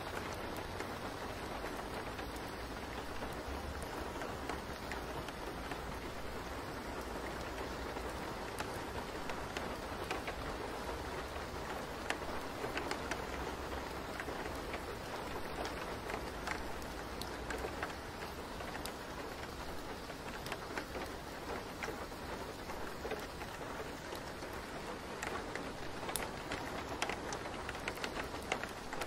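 Steady rain falling: an even hiss with many small, scattered drop ticks.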